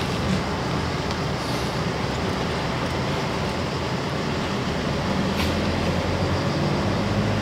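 Car engine and tyre noise heard from inside the cabin while driving slowly: a steady low hum.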